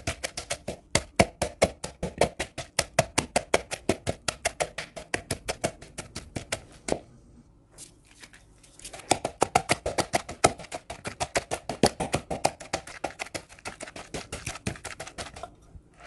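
Wooden pestle pounding a moist paste of garlic, shallots and bird's eye chillies in a plastic bowl: quick, even knocks about five a second. The pounding pauses for about two seconds around the middle, then resumes and stops near the end.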